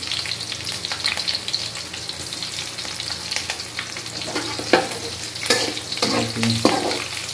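Garlic and green chillies sizzling and crackling in hot oil in a steel kadhai. From about four seconds in, a slotted steel spoon stirs them, scraping and knocking against the pan several times.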